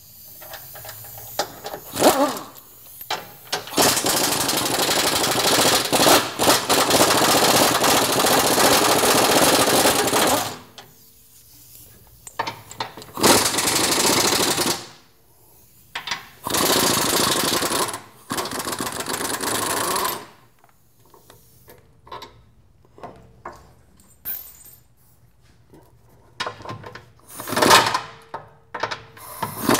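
Pneumatic impact wrench hammering 19 mm bolts out of a Jeep Wrangler JK's gas-tank skid plate. It comes in several runs, the longest about seven seconds, with pauses between.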